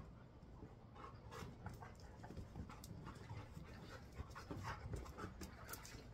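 A dog panting in quick short breaths to cool off on a hot afternoon.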